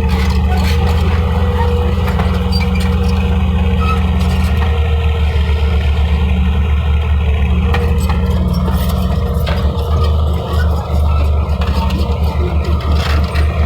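Heavy construction machinery running steadily on site: a loud, low diesel engine sound with a rapid, fine pulsing and a brief dip about ten seconds in.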